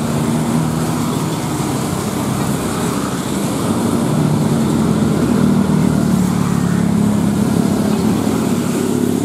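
Dense road traffic on a wet road: motorcycles, cars and buses running past with a steady low engine drone and tyre hiss, growing a little louder about four seconds in.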